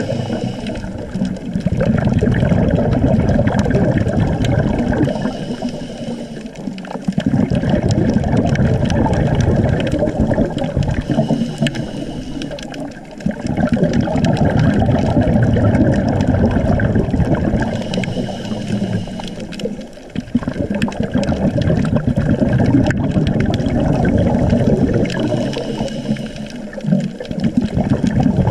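Scuba diver breathing through a regulator underwater: a loud bubbling rush of exhaled air that swells and fades in a slow cycle, dipping about every six to seven seconds.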